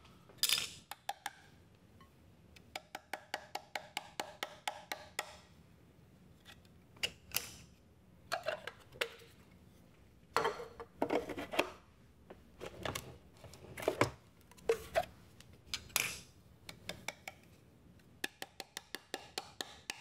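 A burr grinder's plastic grounds bin tapped and knocked to empty fine coffee grounds onto a ceramic plate: runs of quick light taps, about five a second, with a few louder knocks between them.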